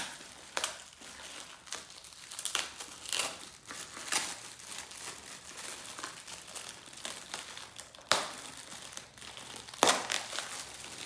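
Gift wrapping crinkling and rustling as a present is unwrapped by hand, in irregular handling noises with a few sharper, louder crackles, the loudest right at the start and about eight and ten seconds in.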